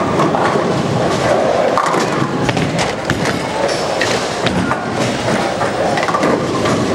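Bowling ball rolling down the lane and crashing into the pins, followed by clattering pins and the clanking of the pinsetter machinery, over a steady bowling-alley din of voices.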